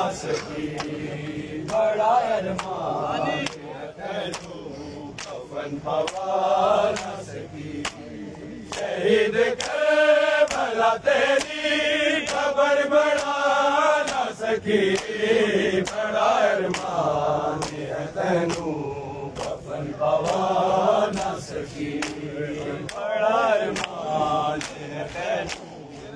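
A crowd of men chanting a noha (mourning lament) together in unison, over a steady rhythm of sharp slaps of hands on bare chests (matam), about one and a half slaps a second.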